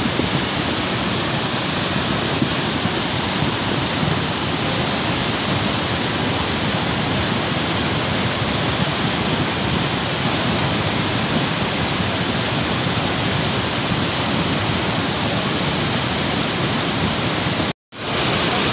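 Cold lahar (volcanic mudflow) flood rushing down the riverbed: a steady, loud, unbroken rush of churning muddy water and debris. The sound cuts out completely for a split second near the end.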